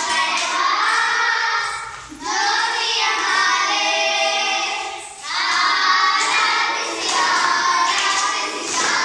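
A group of children singing a song together in unison, in long sung phrases with two short breaks for breath.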